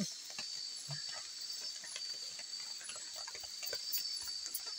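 Steady high-pitched chirring of night insects, with scattered light clicks and knocks as river stones are set in place for a makeshift hearth.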